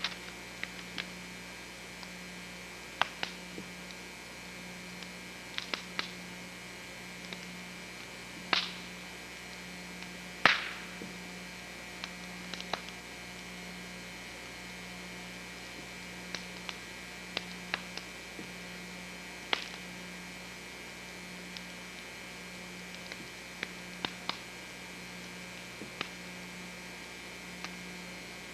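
Steady electrical hum, low with a thin whine above it, broken by scattered sharp clicks and pops at irregular intervals; the two loudest come about eight and ten seconds in.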